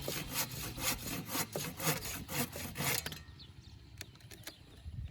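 Hand saw cutting through wood in even strokes, about two a second, stopping about three seconds in, followed by a few light knocks.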